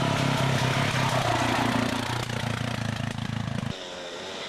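Dirt bike engine running steadily close by, stopping abruptly about three and a half seconds in.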